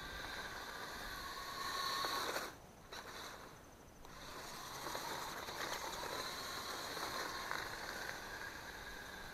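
Faint whine of small electric motors: a few steady tones that waver and glide in pitch, over a hiss. It drops away briefly about two and a half seconds in.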